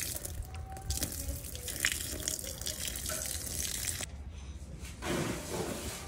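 Hands swishing tomatoes, onion, citrus fruits and green chilies around in a stainless steel bowl of water, with splashing and small knocks of produce against the bowl; near the end the water is tipped out of the bowl onto the ground.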